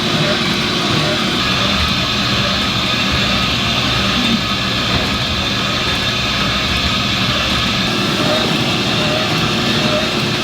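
Kkultteok (honey-filled rice cake) machine running steadily with a constant mechanical hum, and a faint short chirp repeating a little under once a second as it cycles.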